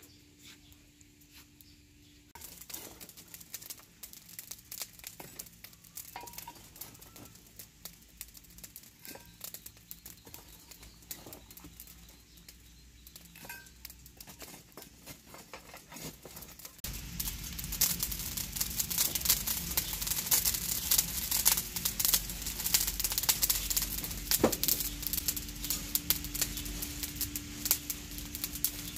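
Fish sizzling and crackling on a wire grill over a charcoal brazier: a dense run of small pops that starts a couple of seconds in. A bit past halfway it gets much louder, with a low rumble under it.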